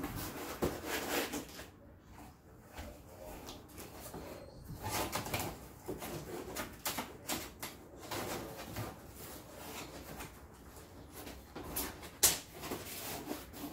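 A large rifle box being handled: the lid fitted back on and the box slid and stood on end, with rustling, scraping and knocks. The sharpest knock comes near the end.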